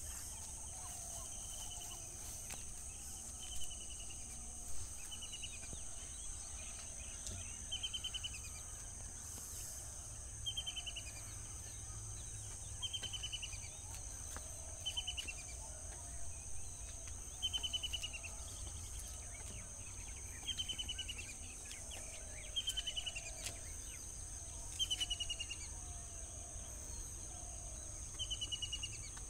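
Steady high-pitched insect chorus, with a bird repeating a short, quick, falling trill about every two seconds over a low rumble.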